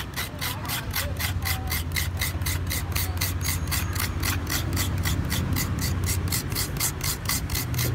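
Fresh coconut flesh being scraped out of a half shell with a metal scraper, in quick, even rasping strokes of about five a second.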